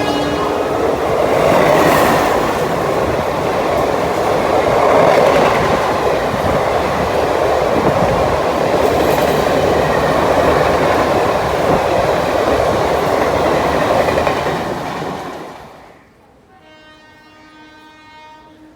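Indian Railways express train passing at speed: a loud, steady rush of coaches' wheels on the rails with clickety-clack, which drops away suddenly about fifteen seconds in. Then a faint, held electric locomotive horn sounds toward the end.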